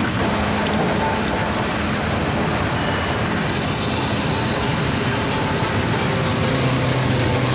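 Vintage electric tram running along its track: a steady rumble of steel wheels on rails and traction motors as the car passes.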